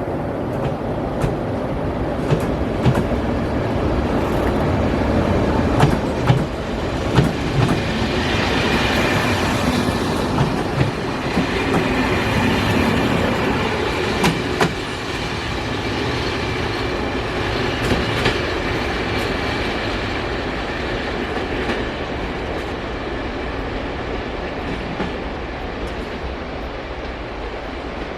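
Passenger train hauled by a Skoda class 44 electric locomotive passing at speed: a steady rumble with wheels clicking over rail joints, and a thin wheel squeal in the middle stretch. The sound eases slightly toward the end.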